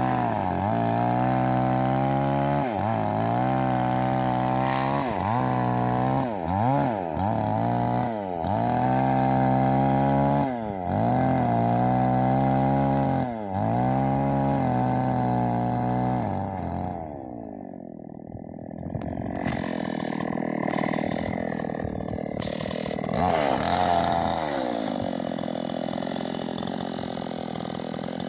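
Stihl MS 381 two-stroke chainsaw ripping lengthwise through a meranti log at full throttle, its pitch sagging and recovering every second or two as the chain loads up in the cut. About sixteen seconds in, the throttle is let off and the saw drops to a low run, with one short rev a few seconds later.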